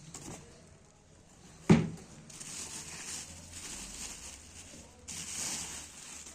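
Handling noises: one sharp knock a little under two seconds in, then rustling.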